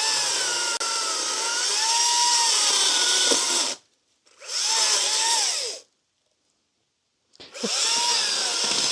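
Makita 18V cordless electric chainsaw running in three separate bursts, its motor whine dipping and rising in pitch as it bites into the wood.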